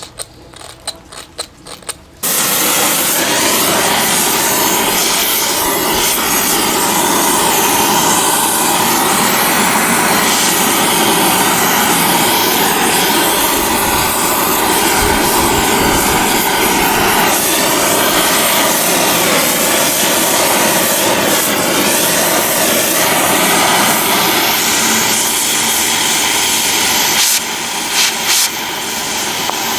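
Oxy-acetylene torch with a scarfing tip gouging out metal: after a few small clicks, a sudden loud, steady hiss starts about two seconds in and runs on, dropping a little near the end.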